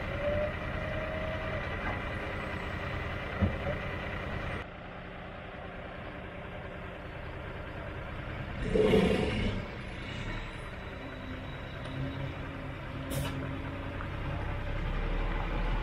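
Heavy truck's diesel engine running steadily under a boat-hauling trailer, with a short loud hiss of air about nine seconds in.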